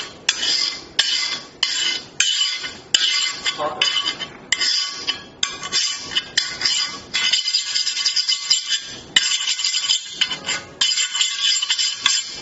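A hard tool scraped again and again across a ceramic-coated enamelled glass panel, in quick strokes about one or two a second, each starting with a sharp scratch. It is a scratch test of the panel's scratch-resistant coating.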